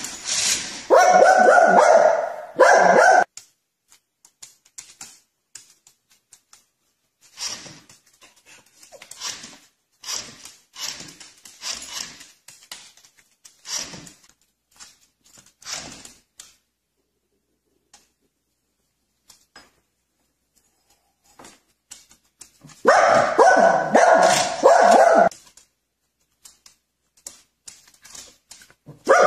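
A dog barking in loud, rapid runs in the first few seconds and again about 23 seconds in, with fainter, shorter barks and yips between.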